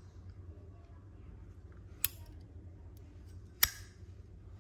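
Two sharp metal clicks about a second and a half apart, the second louder, from a Zippo lighter being handled.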